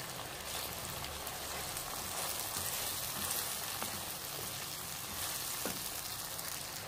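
Onion-tomato masala with boiled chickpeas frying in oil in a karahi: a steady crackling sizzle. It is stirred with a plastic spoon partway through.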